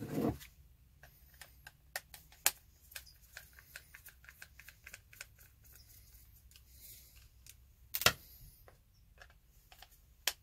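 Scattered light clicks and ticks as a screwdriver works the screws of a Milwaukee M12 FUEL cordless ratchet's plastic housing, with a sharper knock about eight seconds in.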